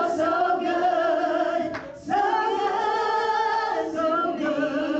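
A group of women singing a slow worship song together in long held notes, with a short break for breath about two seconds in.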